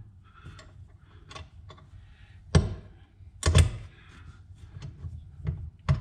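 Hand-tool work on an aluminum intake manifold: scattered metallic clicks and knocks as a speed wrench is worked on the fuel rail hardware. The sharpest knocks come about two and a half and three and a half seconds in, with two more near the end.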